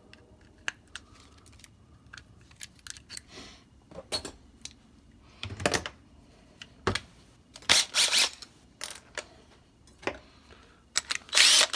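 Small metal clicks and clinks of a hole saw arbor and hex key being handled as the arbor's extension is taken off, with a few short scraping rubs about two-thirds of the way in and near the end.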